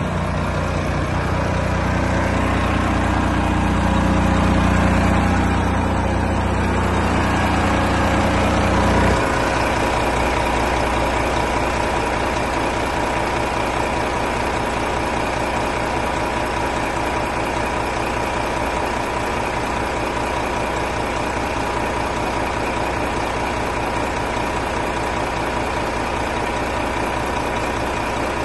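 Renault T 460 truck's diesel engine idling steadily. About nine seconds in the deep rumble drops away, leaving a steadier hum with a thin whine over it.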